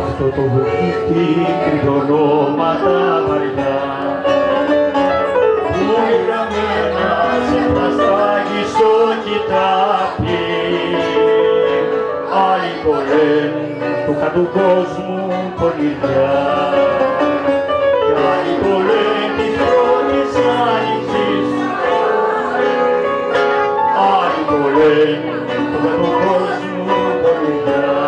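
Live Greek song played on bouzouki with a second plucked string instrument and keyboard accompaniment, the bouzouki's bright picked notes running over the chords.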